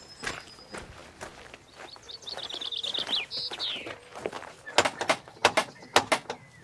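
A small bird sings a quick high trill, then a run of sharp knocks of knuckles on a wooden cottage door near the end, the knocks the loudest sound.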